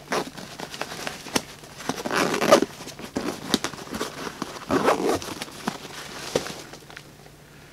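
Backpack fabric rustling and scraping as hands work open the side pocket behind a strapped-on water-bottle pouch, with a few short clicks. Two longer rustles stand out, about two seconds in and again about five seconds in, and the sounds die away near the end.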